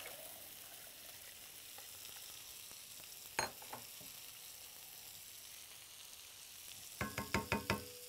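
Food frying quietly in a hot pot, a steady faint sizzle. A single knock comes about three seconds in, and near the end a quick run of ringing metal knocks, a utensil striking the pot.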